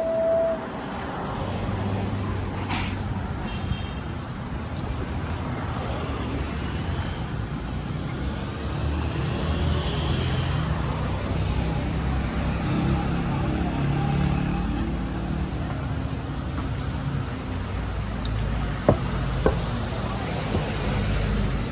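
City street traffic: car and bus engines running past in a steady low rumble. A short, loud single-tone beep sounds right at the start, and two sharp knocks come near the end.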